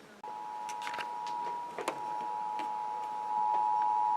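Emergency Alert System two-tone attention signal: a steady dual-pitched tone just under 1 kHz, starting about a quarter second in and getting louder about three seconds in, with a few faint clicks over it. It announces that an alert message is about to follow.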